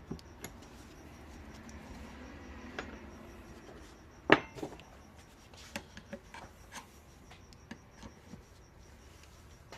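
A brake caliper being set in a bench vise and worked on: a soft rubbing for the first few seconds, one sharp knock about four seconds in, then scattered light clicks and taps.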